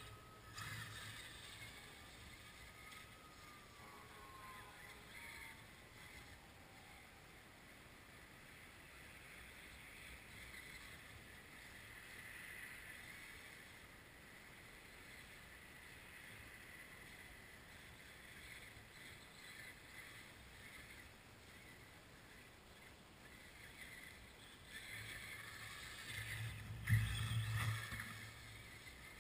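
Faint whine of a brushless electric RC truck motor that falls in pitch over the first several seconds, then a low steady hiss. About 25 seconds in, a louder rumble and rustle comes in, loudest around 27 seconds, then fades.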